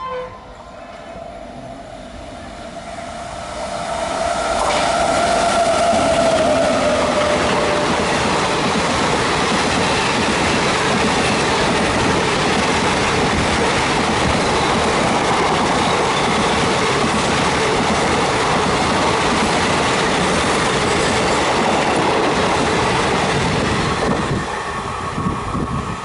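The tail of a train horn blast at the very start, then an express passenger train hauled by a WAP7 electric locomotive passing at speed. A tone sinks slightly in pitch around five seconds in, and then about twenty seconds of steady rushing and clattering wheels follow as the coaches go by. The noise falls away about two seconds before the end as the last coach clears.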